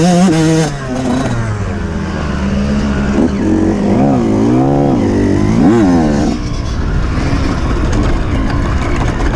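Off-road motorcycle engine running at steady high revs, then dropping off about a second in. It revs up and down in several throttle blips before running on rougher and noisier near the end.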